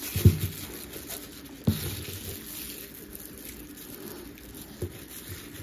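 Thin plastic bag crinkling and rustling as gloved hands twist its ends shut around a roll of ground meat. Three soft knocks come through it, the loudest a little under two seconds in.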